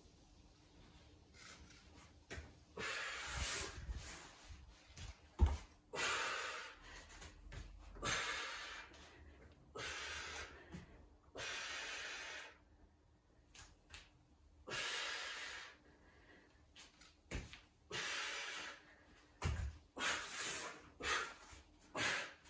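A person breathing hard with exertion during a floor-based bodyweight movement routine: about a dozen strong, hissing breaths, each roughly a second long and spaced unevenly. About five seconds in there is one dull thump as a hand or foot lands on the foam mat.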